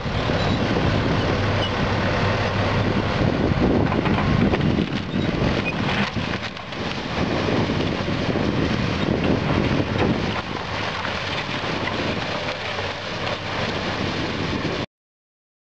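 Diesel engine of a tracked hydraulic excavator running under load as it tears down a house, with debris breaking up under the bucket. The sound cuts off abruptly near the end.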